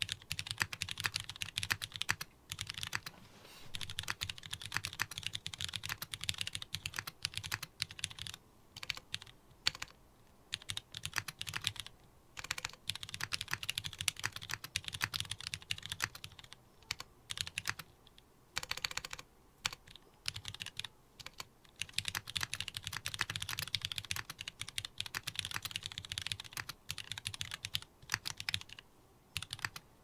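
Fast continuous typing on a Keycult No. 2/65 mechanical keyboard with a brass plate, GMK keycaps and retooled linear Cherry MX Black switches, keystrokes clacking in steady runs broken by a few brief pauses. The builder says the stabilizers and some centre switches still have some spring and stabilizer ping.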